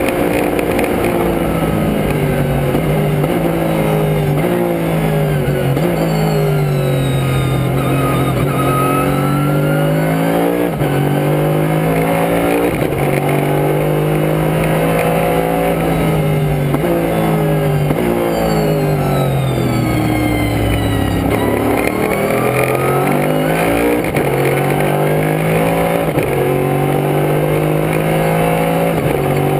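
Two-seat Daytona Prototype race car at speed, heard from inside the cockpit. The engine's pitch climbs through each gear and drops back at each upshift. About two thirds of the way through it falls away through several downshifts for a slow corner, then climbs through the gears again, over steady wind and road noise.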